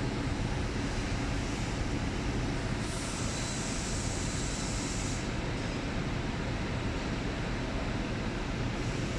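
Steady low rumble of a busy repair shop's background machinery, with a hiss joining about three seconds in for two seconds.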